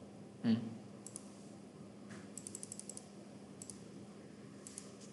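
Clicks of a computer keyboard and mouse: scattered single clicks and a quick run of about seven key or button clicks midway, with a dull thump about half a second in. A faint steady hum lies underneath.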